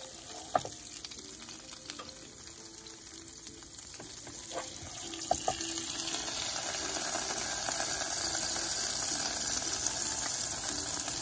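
Smash burger patties and rendered beef grease sizzling on the Ninja Foodi XL Pro's griddle plate, a steady frying hiss that grows louder about halfway through. A few light clicks of a spatula against the griddle.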